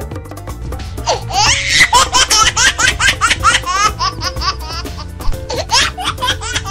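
High-pitched laughter, a quick run of short rising 'ha' sounds starting about a second in, over background music with a steady bass line.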